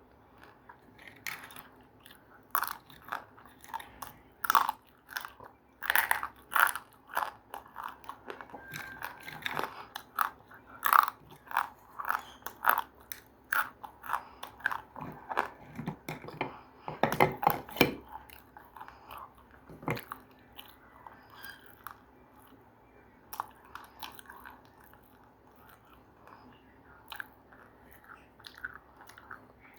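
A person biting and chewing crunchy food close to the microphone, a rapid run of crisp crunches that thins out to slower, fainter chewing after about twenty seconds.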